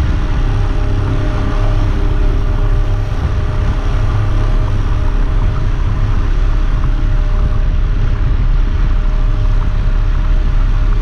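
Boat's 50 hp outboard motor running steadily while trolling: a continuous low drone with a few steady tones above it.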